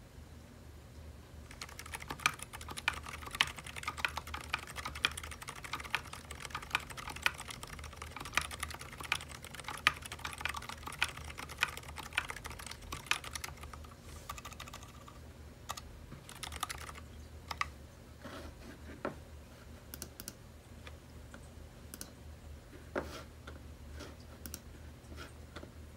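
Typing on a Sidewinder custom mechanical keyboard in HHKB layout, fitted with Zilent V2 silent tactile switches. A fast, steady run of muted keystrokes starts a second or two in and thins to scattered single presses about halfway through.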